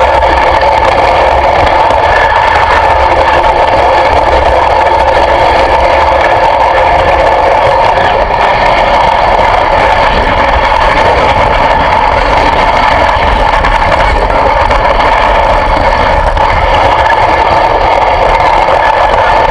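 An engine running loud and close at a steady, unchanging speed.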